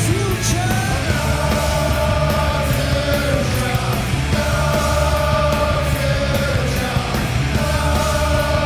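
A punk rock band playing live and loud, with electric guitars, bass guitar and drums, and a big crowd in the hall.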